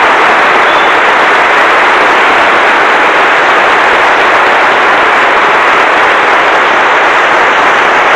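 An audience in a hall applauding, a dense, steady round of clapping at the close of a lecture.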